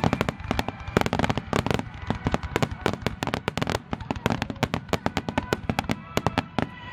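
Fireworks going off in a rapid barrage, many sharp bangs and crackles a second overlapping without pause.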